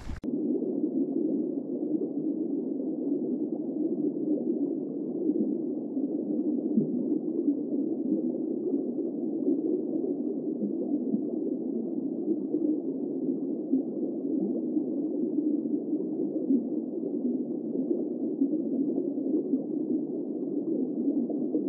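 Steady, muffled rushing noise that stays even throughout, cut off above and below so that only a dull middle band is left, with no speech.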